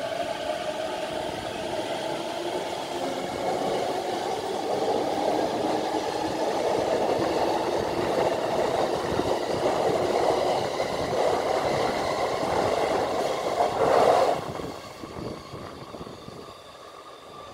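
A JR East E233 series electric commuter train pulls out past the platform, its wheels rolling on the rails and growing steadily louder. The noise drops away abruptly about fourteen seconds in as the last car passes.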